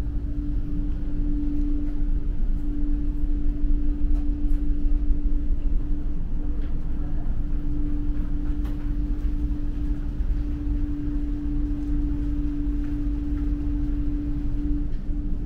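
Steady drone of a large car ferry's engines and machinery heard from inside the ship: a deep rumble with a constant hum above it.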